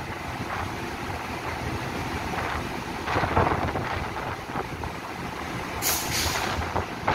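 Taiwan Railway local electric multiple unit standing at the platform with its equipment humming steadily. About six seconds in comes a short, sharp hiss of compressed air from the train's air brakes.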